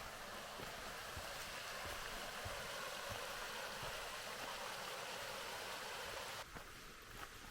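Rushing water, a steady hiss that stops abruptly about six and a half seconds in.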